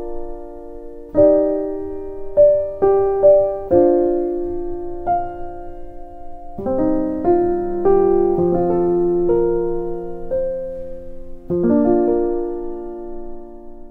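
Background music: a slow solo piano piece of single notes and chords, each ringing and decaying, with the last chord fading away near the end.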